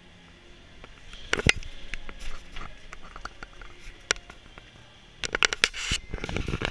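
Footsteps on a concrete floor and gear knocking and rattling as airsoft players move quickly. There are irregular sharp knocks, with a loud cluster about a second and a half in and a denser clatter from about five seconds in.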